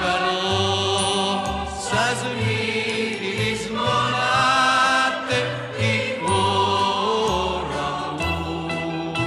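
Recorded Greek song playing: melodic lines over a bass that moves in short, repeated notes.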